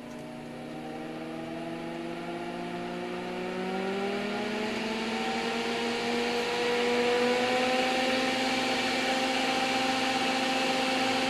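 All-metal fan of a NOEVSBIG solder fume extractor spinning up: its whirring whine rises in pitch and grows louder, then settles to a steady speed about seven seconds in.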